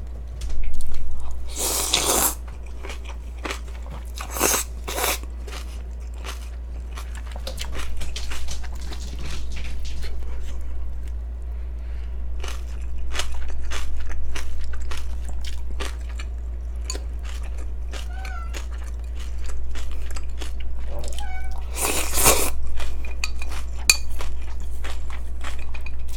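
Close-miked eating of yeolmu naengmyeon: crisp crunching and chewing of young radish kimchi and noodles, with many fine clicks. A few loud slurps of noodles or broth stand out, the loudest about two seconds in and near the end, over a steady low hum.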